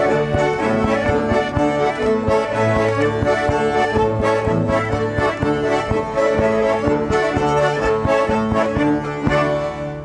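Lithuanian folk dance tune played instrumentally by a small band: a square button concertina leads, with fiddles, a bowed bass and a drum keeping a steady beat.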